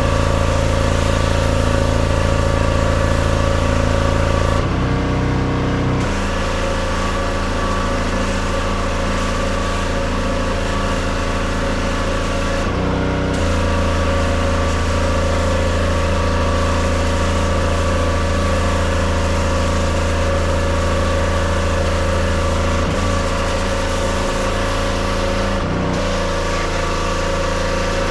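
Pressure washer running steadily: an engine-driven pump with the high hiss of the water jet striking a vinyl fence. The spray hiss drops out briefly three times, at about five, thirteen and twenty-six seconds in, and the engine note shifts each time.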